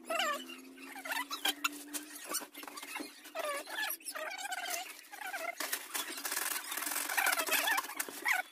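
Repeated short, high squeaks of a small animal, each rising and falling in pitch, amid rustling and knocking as cloth bundles are shifted. A steady low hum runs for the first two seconds or so.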